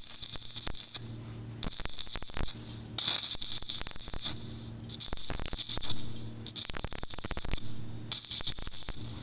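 Stick (shielded metal arc) welding on a steel C-channel: the electrode's arc crackles and sputters steadily, over a low hum. The crackle drops out briefly a few times, about a second in, around six seconds and near eight seconds.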